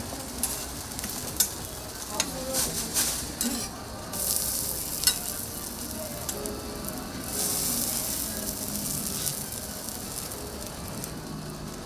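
Food sizzling on a flat-top griddle, with scattered sharp clicks and knocks in the first few seconds. The sizzle swells louder about four seconds in, and again from about seven and a half to nine seconds.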